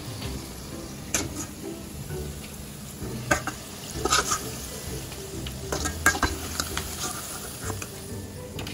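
Battered cauliflower pieces deep-frying in a stainless steel pot of oil, a steady sizzle. A wire spider strainer clinks and scrapes against the pot several times as the pieces are stirred and lifted out.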